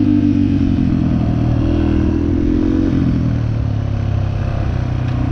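ATV engine running while riding. The revs ease off, pick up briefly about two seconds in, then drop back lower.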